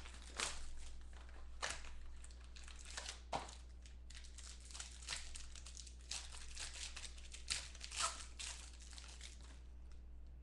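Packaging on a sealed trading card mini box being torn open and crinkled, a run of sharp rustles and crackles that dies down near the end.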